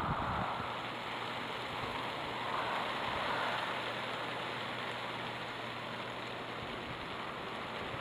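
Steady outdoor background hiss with a faint low hum, swelling a little about three seconds in.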